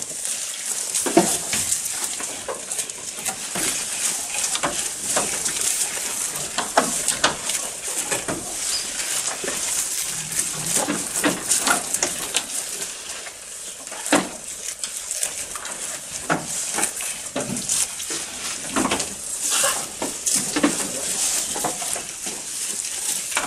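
Several goats eating long green grass leaves from a trough: irregular crisp crunching and tearing as they chew, with the dry rustle of the leaf blades being pulled and shaken.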